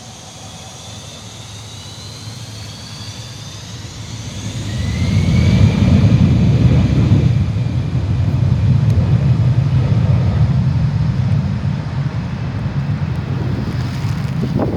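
Fokker 100's twin Rolls-Royce Tay turbofans spooling up to takeoff power: rising whines over the first few seconds, then loud, rough jet noise from about five seconds in, with the blast aimed toward the microphone.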